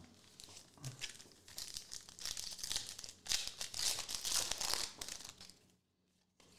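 Foil wrapper of a Panini Contenders football card pack crinkling and tearing as it is pulled open by hand.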